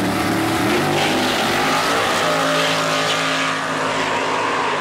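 Drag-racing pickup with a twin-turbo small-block Chevy V8 launching from the line beside another race car, both run at full throttle down the strip. Engine pitch rises over the first second, then holds steady and loud.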